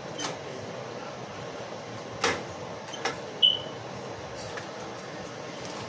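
Kitchen clatter at the stove: a handful of sharp knocks of utensils or pot lids, the loudest a short ringing metal clink about three and a half seconds in, over a steady background rush.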